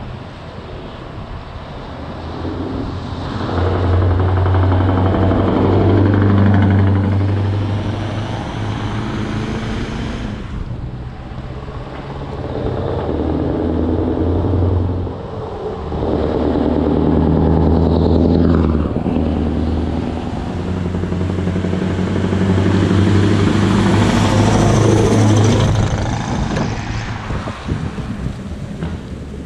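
Scania V8 diesel truck with an open, straight-through exhaust pipe, accelerating hard. Its deep engine note climbs and drops back several times as it shifts up through the gears.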